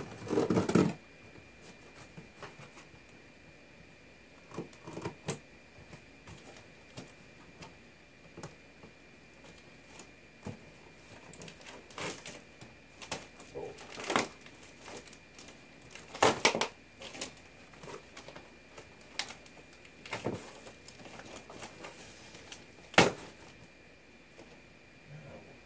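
A stapled cardboard box being worked open by hand: irregular sharp clicks, snaps and scraping of cardboard and staples. The loudest snaps come at the start and about 16 and 23 seconds in.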